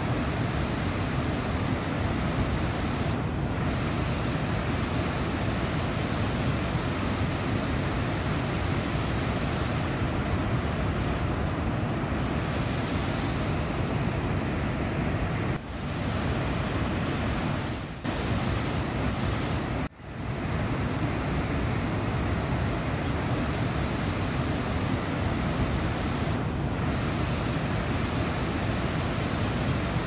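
Fast white-water rapids rushing over rock: a steady, loud rush of water that drops away briefly three times in the second half.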